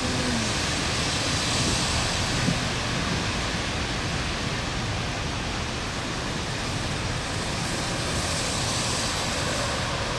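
Heavy rain pouring steadily, a dense even hiss, with one brief knock about two and a half seconds in.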